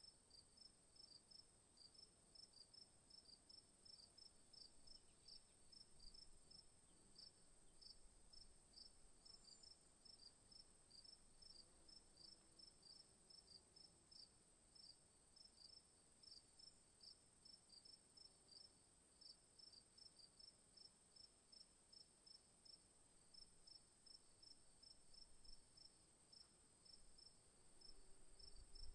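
Faint crickets chirping in a steady rhythm of about three to four chirps a second, over a continuous high-pitched trill.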